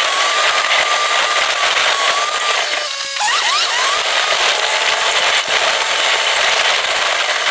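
Steady hissing road and engine noise inside a moving vehicle on a wet lane. A thin, wavering whine runs over it through the first few seconds.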